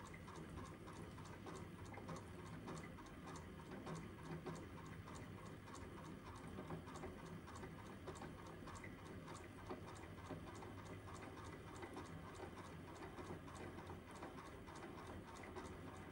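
Faint, even ticking, about three or four soft clicks a second, over a steady low hum from a milling machine while it is finding the edge of the work.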